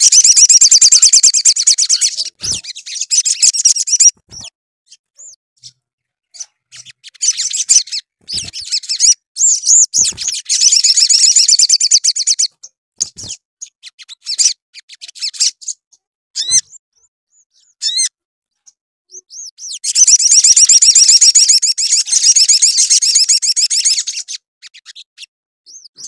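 Male olive-backed sunbird singing: three long bouts of fast, high-pitched twittering song, with scattered single chirps and short pauses between them.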